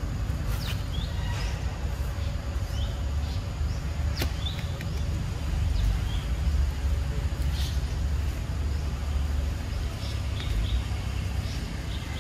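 Outdoor ambience: a steady low rumble with scattered short, high chirps.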